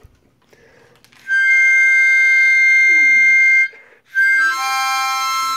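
Harmonica played in two long held chords: the first starts about a second in, and the second begins about four seconds in with a few notes changing under it. Beneath the chords a dog howls along in faint rising and falling wails.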